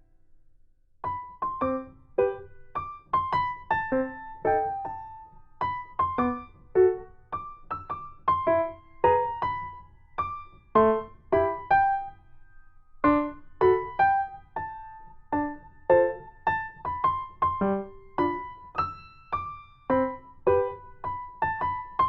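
Background music: a light, cheerful piano tune of short, evenly paced notes. It starts about a second in and pauses briefly around the middle.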